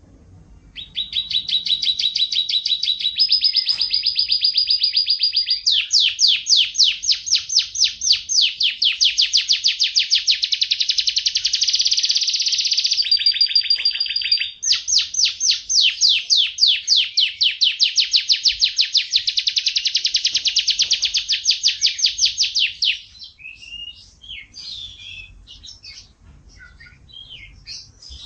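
Domestic canary singing a long, loud song of rapid trills, switching several times between trills of different pitch, then breaking off into scattered short chirps near the end.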